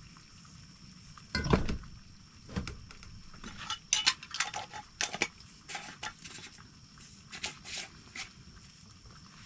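A utensil clinking and scraping against a pan as eggs are cooked, with two duller knocks in the first few seconds followed by a string of short, sharp clinks.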